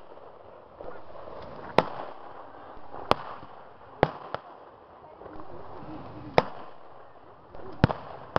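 Gunfire in a mock battle: about seven single blank shots at irregular intervals, two of them in quick succession about four seconds in and another close pair near the end.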